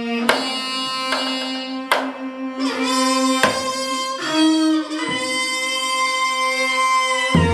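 Korean traditional quartet of taepyeongso, piri, dae-ajaeng and janggu playing long held notes over a low sustained drone. About five sharp drum strokes mark the phrases.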